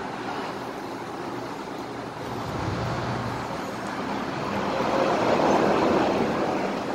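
Steady road traffic noise that swells louder around five to six seconds in, as a vehicle passes.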